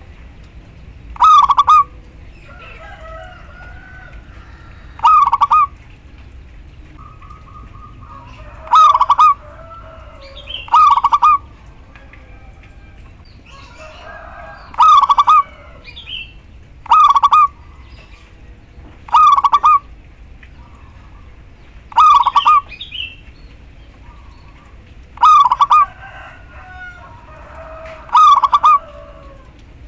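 Female zebra dove (perkutut) calling to males, short loud calls repeated every two to four seconds, about ten in all. Fainter chirps and clucks of other birds sound between the calls.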